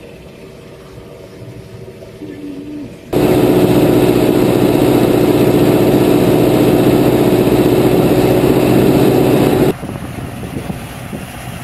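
Tractor engine running on the move, heard through cut-together clips. It is a moderate steady drone at first. About three seconds in it jumps abruptly to a much louder, steady hum with a hiss over it, from the driving view over the Zetor Forterra's bonnet. Near the end it drops back to a quieter engine sound as a tractor passes on the road.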